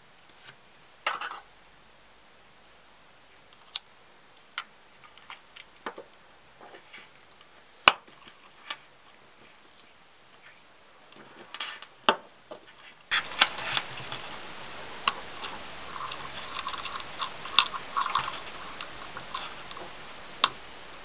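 Scattered small clicks and taps of a metal quartz pocket watch case being handled as it is closed up after a battery change: the back cover pressed shut and the front lid opened. About halfway through a steady hiss comes in, with denser clicking and rustling over it.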